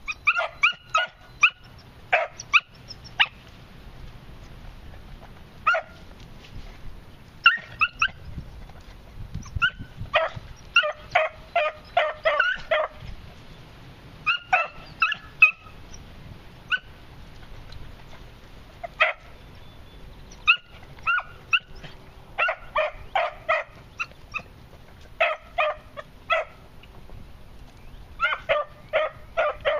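Beagle pups yipping and barking in clusters of short, high yelps, on and off, while trailing a scent with noses down: young hounds giving voice on a track.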